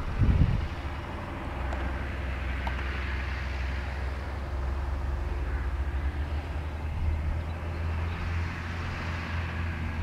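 New Holland tractor's diesel engine running steadily as it works a field with a reversible plough, heard from outside at a distance. A brief low rumble sits right at the start.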